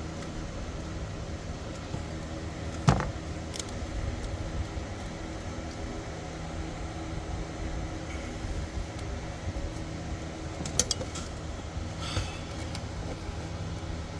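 A sharp plastic click about three seconds in and a few lighter clicks near the end, as the clip on a car's ignition coil connector is pried and squeezed by hand. A steady low mechanical hum runs underneath.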